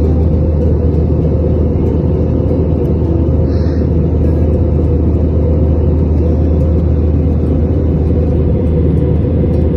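Steady cabin drone of an Airbus A320-family jet airliner in cruise: an even, deep rumble of engines and rushing air, heard from inside the cabin.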